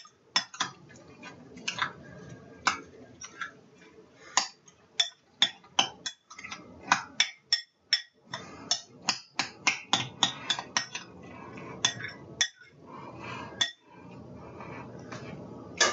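A spoon stirring and pressing wet chopped tomatoes and vegetables in a glass bowl, with irregular clinks of the spoon against the glass over a soft, wet churning of the mixture.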